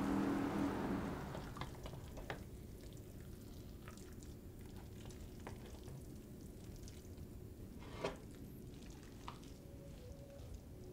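A cooking utensil stirring food in a stainless steel saucepan: faint scraping with scattered light clinks of metal on the pot, the sharpest about eight seconds in. A louder wash of noise fades out over the first second or so.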